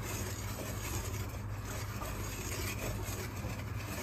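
A whisk stirring dry cake ingredients (flour, sugar, baking powder and salt) in a glass bowl, a soft continuous scraping and rubbing, over a steady low hum.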